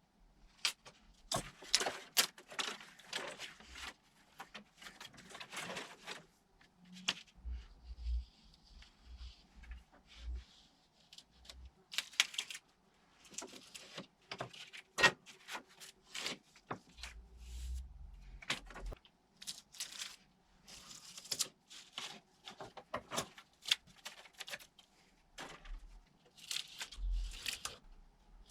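Wooden beehive frame parts being handled and fitted together: irregular clicks, taps and short scrapes, with a few dull thumps.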